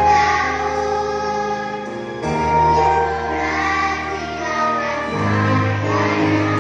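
A group of young children singing together, over a musical accompaniment whose low notes change about two seconds in and again about five seconds in.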